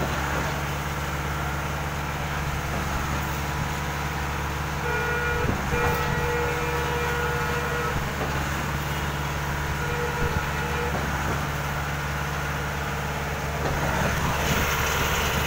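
Heavy diesel engine of concrete-pouring machinery running steadily. A higher steady tone joins for about three seconds near the middle.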